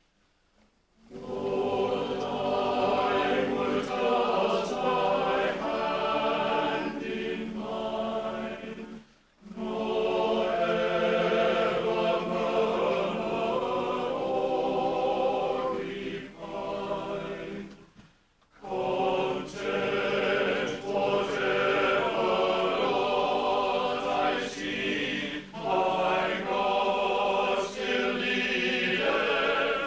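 Salvation Army songster brigade, a mixed choir of men's and women's voices, singing in parts under a conductor. It starts about a second in, with short breaks between phrases near nine and eighteen seconds.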